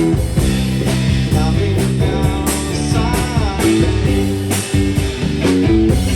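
Rock music: a band with guitar and drums playing a passage with no sung words, the drums striking regularly.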